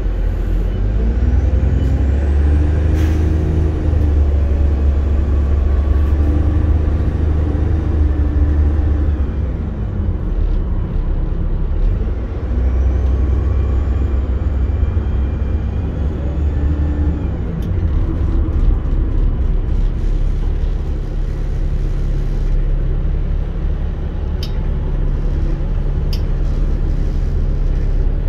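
Inside an Optare Versa single-deck bus on the move: a loud, steady low rumble of the engine and drivetrain, its note rising and falling several times, with a few sharp clicks and rattles from the body.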